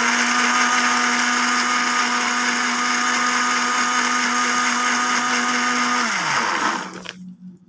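Electric countertop blender grinding chillies, shallots, garlic, ginger and belacan into a paste, its motor running at a steady pitch. About six seconds in it is switched off and the motor winds down with a falling pitch.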